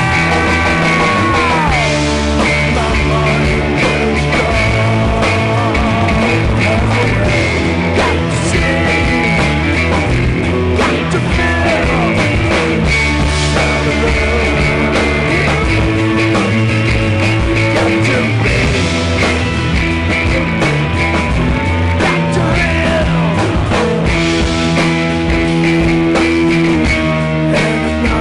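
Rock band playing a loud, steady passage: guitar with notes bending down in pitch near the start, over bass and drums.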